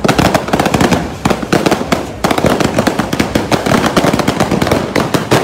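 Fireworks going off in a rapid, continuous barrage of bangs and crackles, many per second, with a brief lull about two seconds in.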